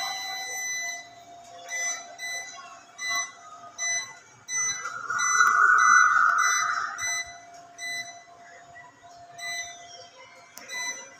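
Keypad of a 5.5 kW battery inverter beeping as its buttons are pressed to step through the settings: short high beeps, about two a second, in runs, over a steady high hum. About halfway through, a louder rushing noise lasts about two and a half seconds.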